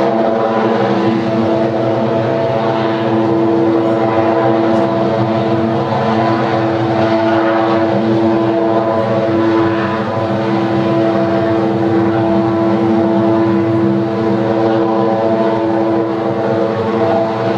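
Thermoelectric power plant giving off a loud, steady mechanical drone: several held tones with a strong low hum on top of a rushing noise. It is an unusual noise, never heard before from the plant, with no known cause.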